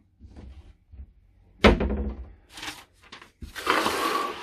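Handling noise on a tabletop: a single thunk of something hard set down about one and a half seconds in, a few light knocks, then about a second of rough scraping near the end.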